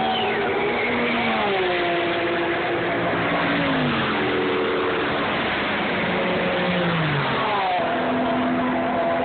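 Race cars passing one after another at speed, each engine note holding and then falling in pitch as the car goes by.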